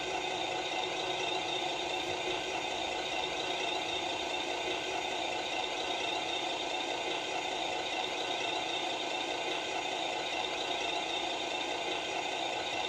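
A radio-controlled model truck running: a steady mechanical whir with a light rattle that holds at an even pitch throughout.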